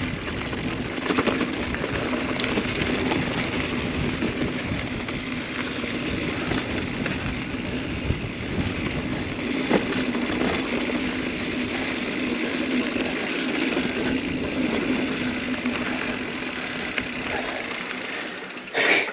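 Mountain bike coasting downhill on a dirt trail: a steady buzz from the rear hub, with tyre noise and scattered clicks and rattles over bumps.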